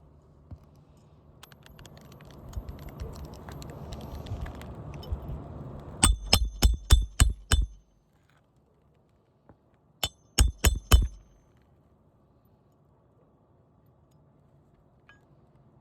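Hammer striking a steel roof snake to drive a roofing nail back under an asphalt shingle tab: about six quick ringing hits about six seconds in, then four more about four seconds later. Before the hits there is scraping as the tool is worked into place.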